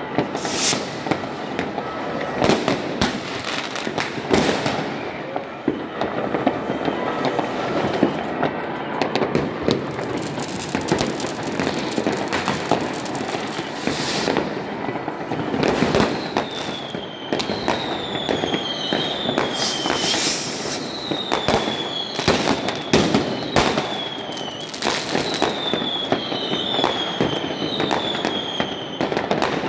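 New Year's fireworks and firecrackers going off in a continuous barrage of bangs and crackling. From about halfway on, a run of a dozen or so short whistles rises over it, each sliding down in pitch.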